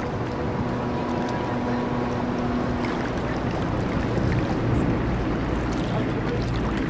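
Steady drone of a ferry under way: engine and water noise heard from on board, with a steady hum tone that drops away about three seconds in.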